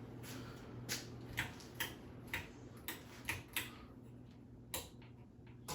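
Ceiling fan running with a low, steady hum and a series of sharp, irregular clicks, roughly two a second.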